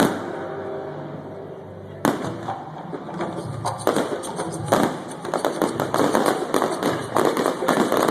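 Fireworks exploding: a sharp bang, another about two seconds in, then from about four seconds in a dense run of rapid crackling pops.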